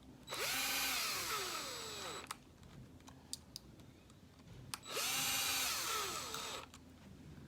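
Power drill driving screws, in two short runs about four seconds apart, each spinning up and then winding down, with light clicks of small parts between them.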